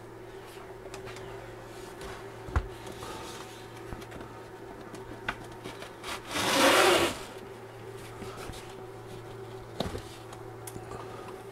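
Handling noise as a laser engraver on a wooden baseboard is set down and slid into a fabric-lined enclosure: a few light knocks, and one loud rubbing swish about six to seven seconds in, over a steady low hum.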